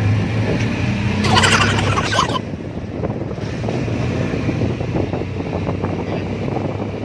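Motorised three-wheeler's engine running steadily while riding, with a brief loud rush of noise about a second in.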